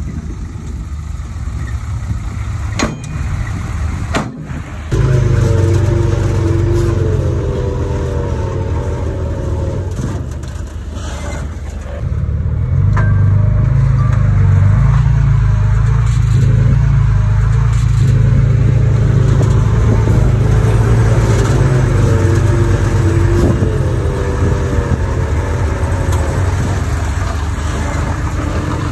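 Heavy construction machine's diesel engine running steadily, getting suddenly louder about five seconds in and again about twelve seconds in.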